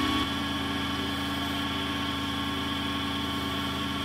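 SIEG SC2 mini lathe running with a brass workpiece spinning in the chuck: a steady motor hum with a whine from the drive over it, settling to a constant speed about a quarter second in.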